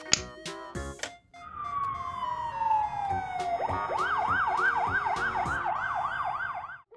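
Emergency-vehicle siren: first a long falling tone, then a fast wailing yelp at about three cycles a second, which cuts off sharply near the end. Cartoon music plays briefly at the start.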